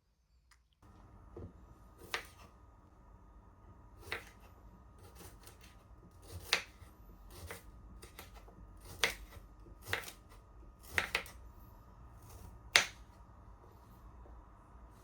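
About ten sharp, short clicks and taps at irregular intervals, like small hard objects being handled or set down, over a faint steady background hum.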